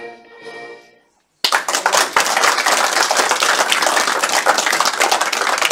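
Instrumental music with held, sustained notes stops about a second in. After a brief silence, loud applause of many people clapping starts abruptly and keeps going.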